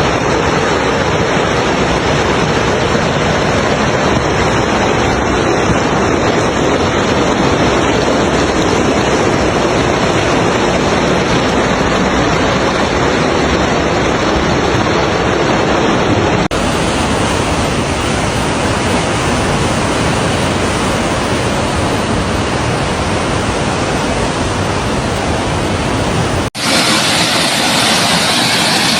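Loud, continuous rushing of fast-flowing floodwater, broken by two abrupt cuts about sixteen and twenty-six seconds in.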